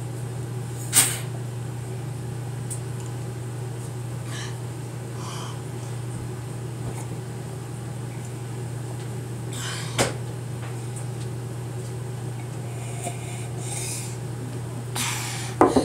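A person gulping a drink from a mug over a steady low hum, with two sharp swallow clicks about a second in and ten seconds in, and a louder clunk and rustle near the end.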